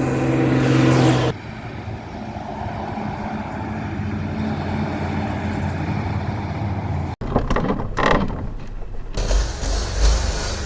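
Ex-army Mercedes Unimog truck's engine running, in several short clips cut together with sudden changes. A steady pitched tone fills the first second, and a deeper rumble comes near the end.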